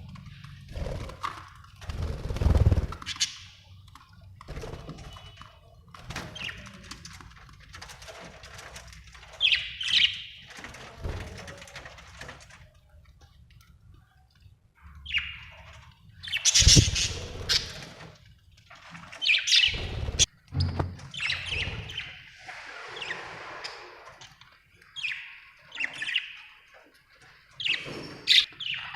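Budgerigars chirping and chattering in irregular bursts, with a few short low thumps among the calls.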